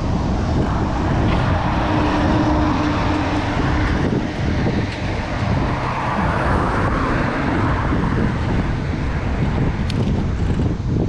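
Steady wind rush on the microphone and road noise from a moving bicycle, with motor traffic passing.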